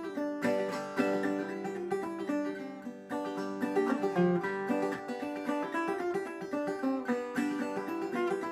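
Homemade gas-can banjo played clawhammer style: a lively tune of quick picked notes and downward brushes across the strings.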